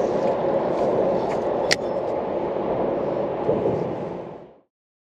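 Steady rushing outdoor noise with a few light clicks, one sharper click a little under two seconds in; the sound fades out to silence a little past four seconds in.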